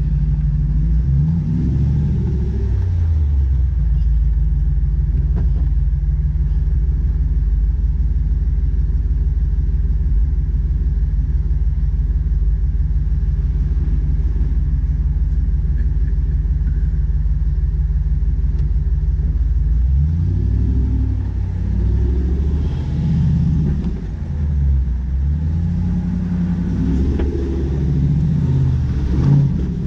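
Jeep Wrangler LJ's engine running at low revs, heard close through the hood, as the Jeep crawls over rocks. From about twenty seconds in, the revs rise and fall repeatedly as the throttle is worked over the rocks.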